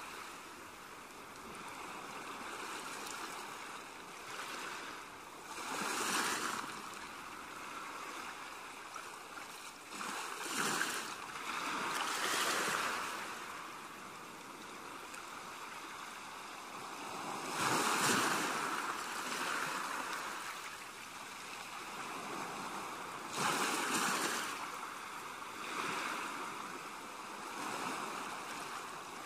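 Ocean waves washing in: a steady surf hiss that swells and falls back every few seconds.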